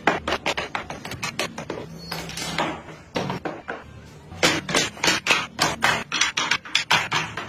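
Wooden parts knocking and clattering as they are set down on a table and on each other: a quick, irregular run of sharp wooden knocks that becomes faster and more even in the second half.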